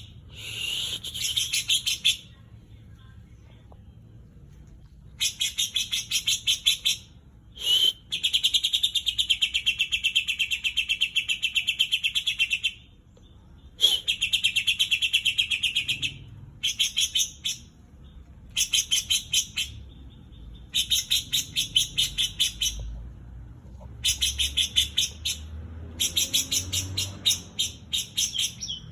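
Green leafbird (cucak ijo) singing in repeated bursts of rapid, chattering trilled notes with short pauses between phrases. Its song is filled with mimicry of the cream-vented bulbul (kapas tembak).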